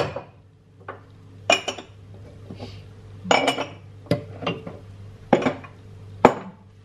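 Kitchen utensils clinking against dishes: about eight sharp, irregularly spaced clinks, each with a short ring, over a low steady hum.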